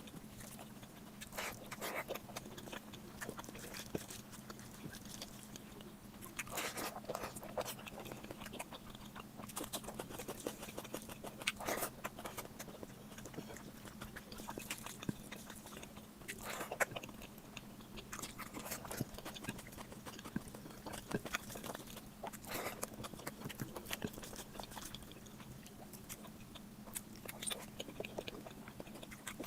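Close-up chewing and biting of a person eating mutton fat curry with rice, with frequent short wet clicks and smacks. A low steady hum runs underneath.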